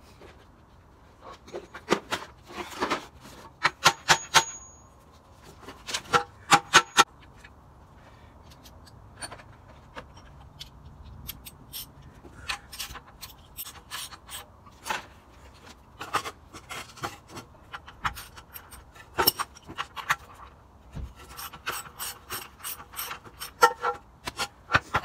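Sharp metallic clicks and clinks in irregular clusters from hand tools working on a small bicycle's front fork and axle as its front wheel is taken off, with a short metallic ring now and then.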